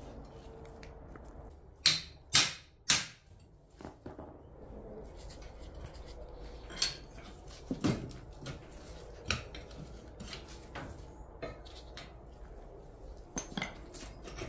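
Metal-on-metal knocks and clinks from hand tools working the rusty iron pivot joint of an old plow frame: three sharp strikes about two seconds in, then scattered lighter taps and scrapes.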